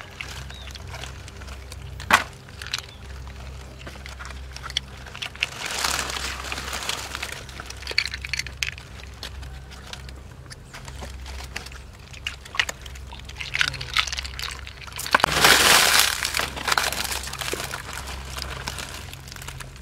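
Water and mud sloshing and splashing, with scattered clicks, a sharp knock about two seconds in and a louder burst of splashing a few seconds before the end, over a steady low hum.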